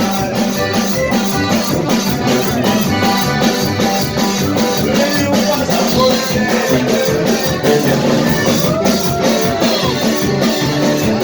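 A banda band playing music loudly, with drums keeping a steady beat and a pitched voice or horn line sliding up and down near the end.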